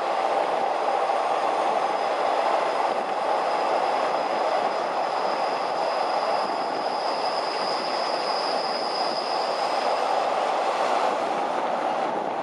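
Long-distance passenger train running at speed on the rails, a steady rolling rumble of wheels and carriages. A faint high-pitched wheel squeal comes in about three seconds in and fades out shortly before the end.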